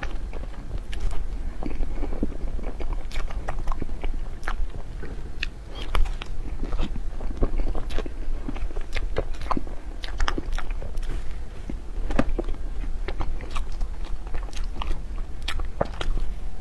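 Close-miked eating of xuemeiniang snow-skin mochi desserts: biting and chewing with many sharp wet mouth clicks, several a second, over a steady low hum.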